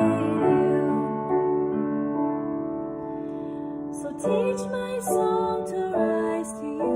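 A woman singing a slow worship song to her own piano accompaniment: held piano chords fade for the first few seconds, then a new chord is struck and her voice comes in about four seconds in.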